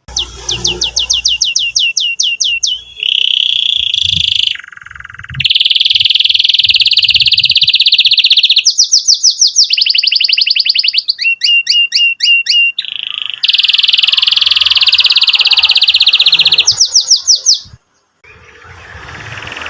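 Domestic canary singing a loud, fast song: runs of rapid repeated sweeping notes alternate with long, even rolled trills, the phrases switching abruptly. The song breaks off briefly near the end.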